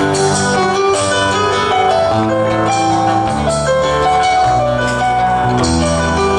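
Instrumental passage of a gato, a Cuyo folk dance tune, played live on acoustic guitars with a moving bass line and no singing.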